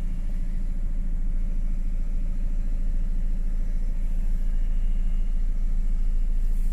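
A van's engine running steadily, heard from inside the cab as a low hum that grows slightly louder.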